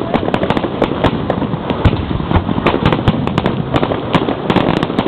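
Fireworks firing close by in a dense, rapid barrage: many sharp bangs and cracks a second, one right on top of the next, without a pause.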